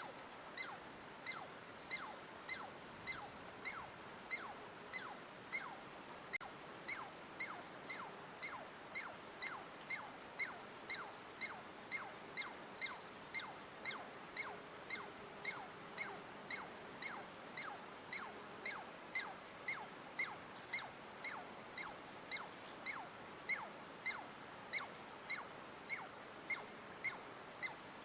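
A small animal calling: one short, sharp chip that drops in pitch, repeated steadily about one and a half times a second, over a faint background hiss.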